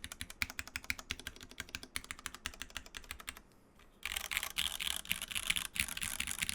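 Typing on a Hand Engineering 2000mini SE mechanical keyboard with unlubed Cherry MX2A Black linear switches in an aluminium plate and KKB Soju keycaps: a rapid run of key clicks. It pauses briefly about three and a half seconds in, then comes back as a louder, denser flurry of keystrokes.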